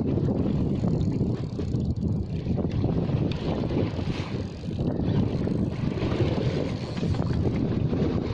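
Wind buffeting the microphone aboard a boat at sea: a steady low rumble.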